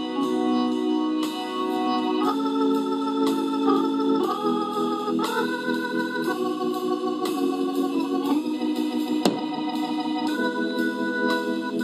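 Slow organ music: held chords that shift to new chords every second or two.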